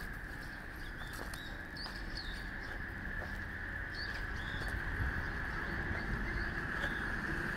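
Outdoor ambience: a steady high-pitched drone, with short bird chirps scattered through it and a low rumble underneath.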